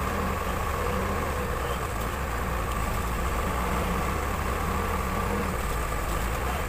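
Case 580 Super L backhoe loader's diesel engine running steadily while it works, with a steady high whine above the engine.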